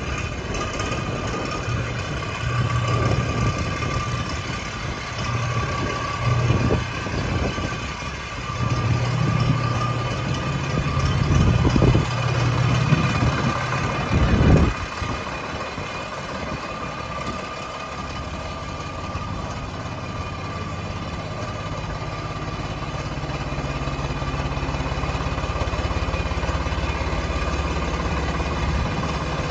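Swaraj tractor's diesel engine running, its speed shifting up and down with two short louder surges about halfway, then settling into a steady run for the second half.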